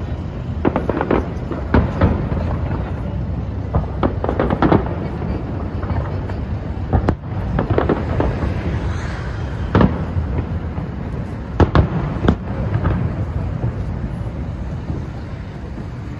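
Fireworks display: many sharp bangs and crackles going off at irregular intervals, over a steady low rumble of background noise.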